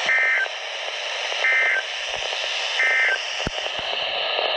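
Weather radio broadcast of the EAS end-of-message signal: three short, high-pitched digital warbling data bursts a little over a second apart, over steady radio static hiss. The bursts mark the end of the severe thunderstorm warning.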